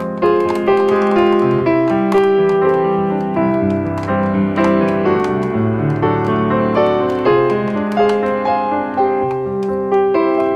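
Background piano music: a steady melody of short notes over chords.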